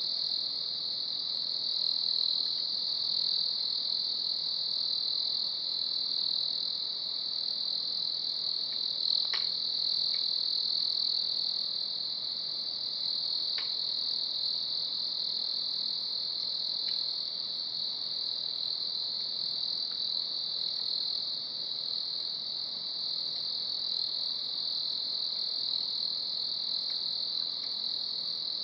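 Dense, steady chorus of night insects trilling high and without pause, with a few faint pops from the campfire, the clearest about nine seconds in.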